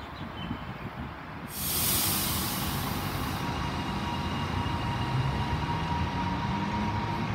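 Melbourne High Capacity Metro Train electric train at the platform: a sudden loud hiss of air about a second and a half in, then a steady high tone. From about halfway through, its traction motors whine and rise in pitch as the train pulls away.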